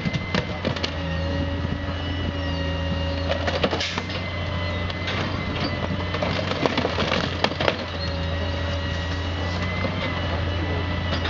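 Grapple loader truck with its engine running and a steady whine from the loader, while the grapple crunches and clanks into a pile of debris, with knocks bunched about a third of the way in and again past the middle.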